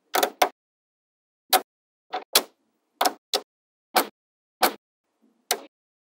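Small metal magnetic balls snapping together with sharp clicks as strips of balls are pressed onto a structure built of the same balls. There are about ten clicks, some in quick pairs.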